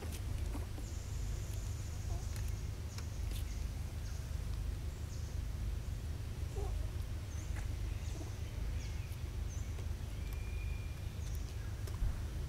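Outdoor ambience: a steady low rumble with faint, short high-pitched bird chirps now and then and a few soft clicks.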